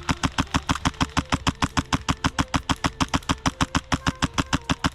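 An HPA airsoft carbine (MTW Wolverine) firing a long full-auto burst, about nine shots a second, that stops abruptly near the end.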